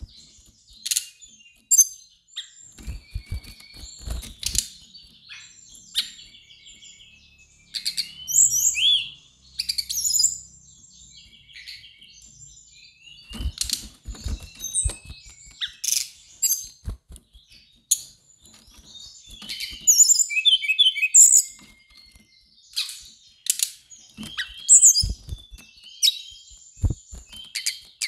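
Brown-chested jungle flycatcher singing: a long run of quick, varied chirps and whistled phrases, some sliding up or down, with a few sharp knocks in between.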